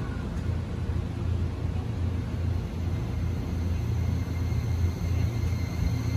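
JR East E261 series 'Saphir Odoriko' electric train pulling away from the platform: a steady low rumble, with a faint high whine coming in about four seconds in.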